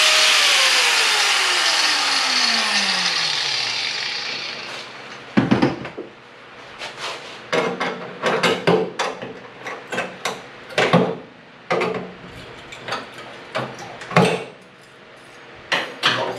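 A power tool cutting, let go near the start so its motor winds down with a falling whine over about three seconds. Then a string of sharp clicks and knocks from parts and tools being handled.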